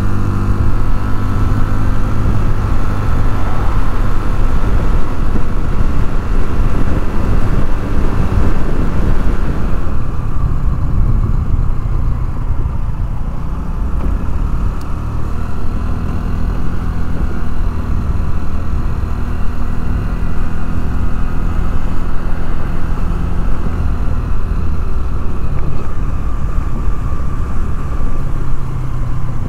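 Honda Navi 110's small single-cylinder engine running while riding, with wind rushing over the microphone. About ten seconds in the wind drops away and the engine carries on at lower speed.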